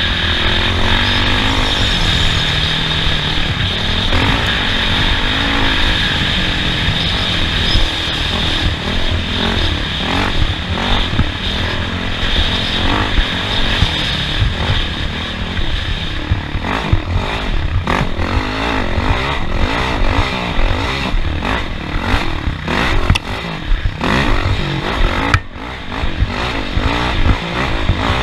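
Off-road race vehicle's engine running hard, rising and falling in pitch as it revs over a dirt track. From about halfway through it is joined by many sharp knocks and rattles from the vehicle over rough ground.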